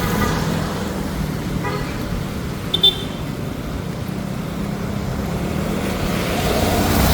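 Road traffic close by: vehicle engines running with a steady hum. About three seconds in comes one short, high beep, a vehicle horn toot.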